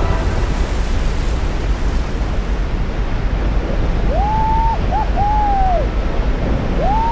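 Steady loud rush of water, the roar of glacial meltwater and sea. Several short, high, arching calls or whoops come over it about four to six seconds in and again near the end.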